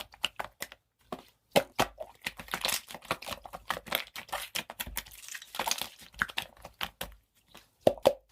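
Slime being squeezed and poked by hand: a dense run of sharp crackling pops and clicks, with a short pause about a second in and sparser pops near the end.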